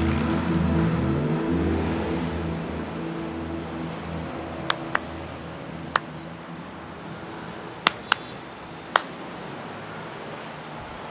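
A person clapping hands: six sharp claps, some in quick pairs, spread over about four seconds in the middle, over steady street background noise.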